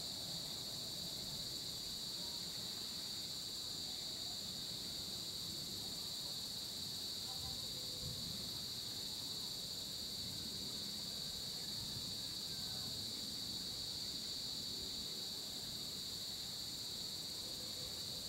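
A steady, high-pitched chorus of insects, unchanging, over faint low background noise.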